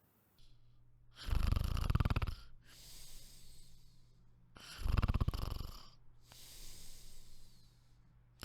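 Snoring: two loud rattling snores about three seconds apart, each followed by a softer breathy exhale.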